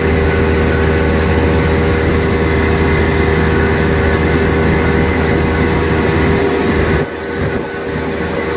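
Wakesurf boat's engine running steadily under way, with the rush of its churning wake; the level drops a little about seven seconds in.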